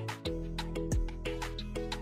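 Instrumental background music with sustained notes over a regular beat.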